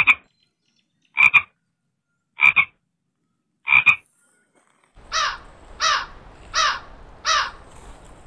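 Frog croaking: four short double croaks about a second apart, then four quicker calls that sweep down in pitch over a faint background hiss.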